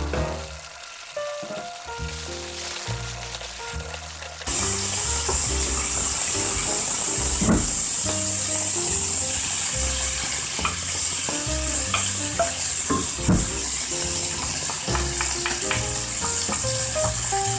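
Sliced pork sizzling in hot oil in a nonstick wok, stirred now and then with a bamboo spatula. The sizzle jumps sharply louder about four and a half seconds in, over background music.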